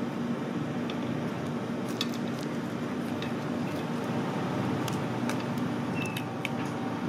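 Scattered small clicks and taps as grilled giant tiger prawns are picked apart with fingers and chopsticks on a glass plate, over a steady low background hum.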